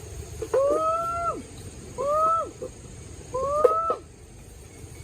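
An animal calling three times, each call a short tone that rises and then falls, about a second and a half apart.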